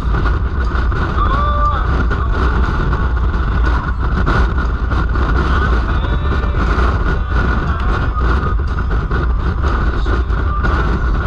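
Steady wind and road noise of a vehicle underway, over a deep, constant engine drone.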